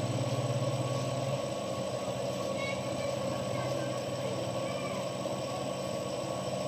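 Metal lathe running steadily with an airgun barrel spinning in its chuck, with no cutting: an even motor and spindle hum. The low part of the hum eases a little about a second and a half in.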